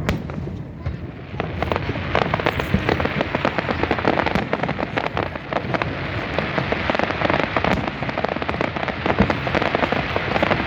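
Aerial fireworks going off in a dense, rapid barrage of crackles and bangs, many a second, that thickens about a second and a half in.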